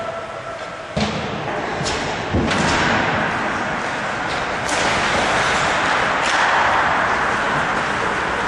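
Ice hockey play in a rink: a handful of sharp knocks and thuds from the puck and sticks against the boards and ice, over a steady scraping hiss of skates. A steady tone cuts off about a second in.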